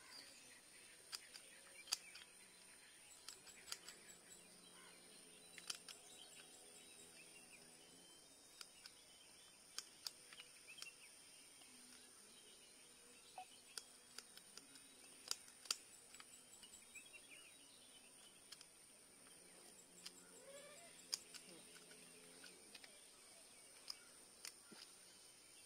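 Near silence broken by scattered sharp clicks: small kitchen scissors snipping the fins off a small river fish, over a faint steady high-pitched hiss.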